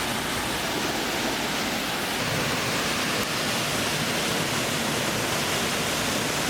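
Aira Force waterfall, falling water rushing steadily and really noisy.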